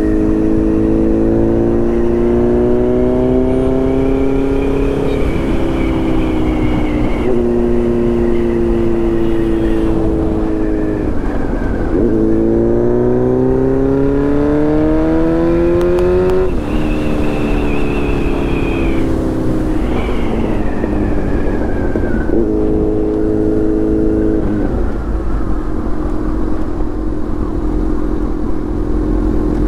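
Kawasaki Z900's inline-four engine through a full titanium Arrow exhaust, heard from the rider's seat, accelerating through the gears: the pitch climbs and then drops sharply at each upshift, four times. Later the engine eases off, holds steady for a couple of seconds and settles lower, over a constant rumble of wind.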